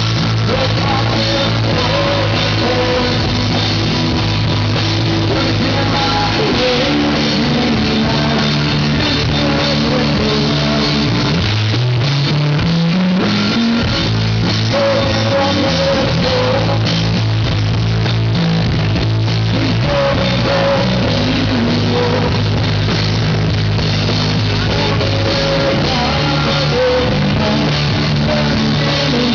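Live rock band playing loudly, with electric guitar. About halfway through, a rising run of low notes climbs step by step.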